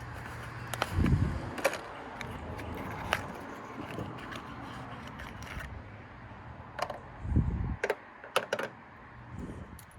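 Spark plugs and their packaging being handled: scattered small metallic clicks and taps, with a dull thump about a second in and another about seven seconds in.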